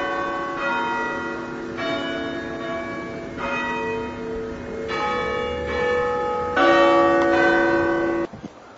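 Church bells ringing, a new bell struck every second or so with each tone ringing on under the next, then cutting off suddenly near the end.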